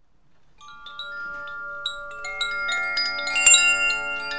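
Chimes ringing: clear, bell-like notes struck one after another, each ringing on, starting softly and growing denser and louder as they build.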